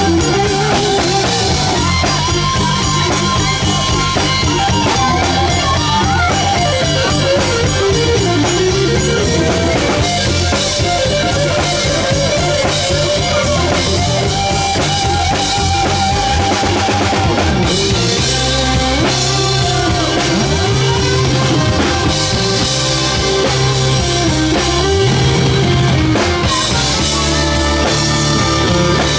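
Live rock band playing an instrumental passage: drum kit and bass keep a steady beat under a gliding guitar melody.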